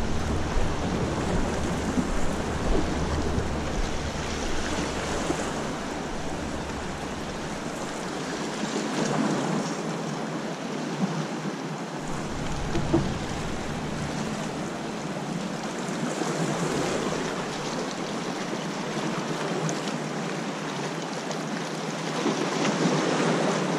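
Waves washing and lapping against the boulders of a rock jetty, a steady rushing noise, with wind rumbling on the microphone through the first few seconds and again about halfway through.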